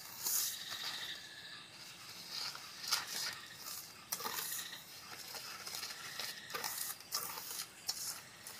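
Wire whisk beating eggs and sugar in a stainless steel bowl, scraping and clinking against the metal in quick, irregular strokes.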